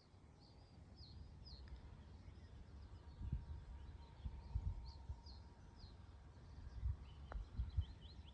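Outdoor quiet with small birds chirping, short high chirps scattered throughout, over low rumbling thumps that come and go.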